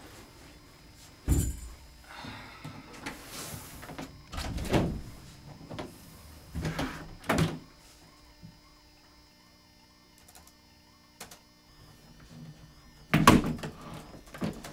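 Several sudden knocks and thumps, the loudest about a second in and another near the end, with scraping between them in the first half and a quieter stretch in the middle.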